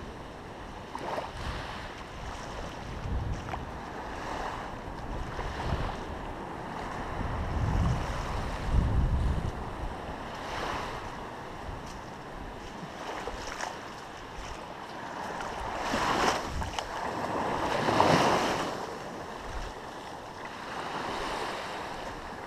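Ocean surf washing in and ebbing in repeated swells, the loudest two surges about two-thirds of the way through. Low wind rumble on the microphone a few seconds in and again around the middle.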